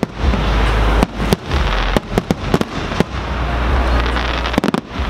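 Aerial fireworks shells bursting in quick succession: an irregular string of sharp bangs and crackles over a constant low rumble.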